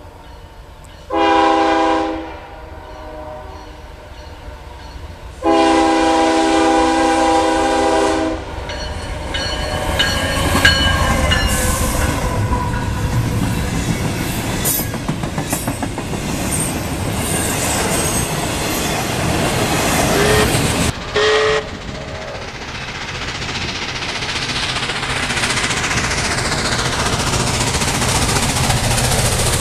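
A locomotive air horn sounds twice, a short blast and then a long one. A freight train then passes close by, its wheels clattering over the rail joints with high squeals now and then.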